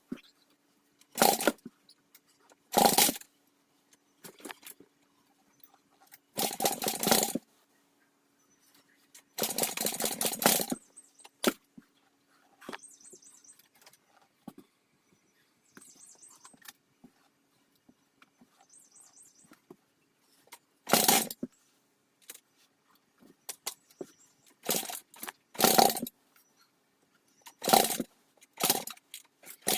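Dirt bike's electric starter cranking in about ten short bursts, a couple lasting about a second, with the engine never catching, over a faint steady hum. The failure to fire is put down by the owner to a carburettor not yet cleaned and gas that has sat for 13 months.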